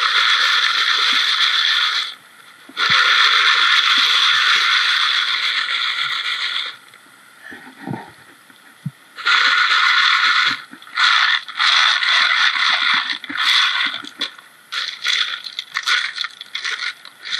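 Gravel and small stones rattling and scraping as they are worked by hand. There are two long stretches of a few seconds each, then shorter, choppier bursts.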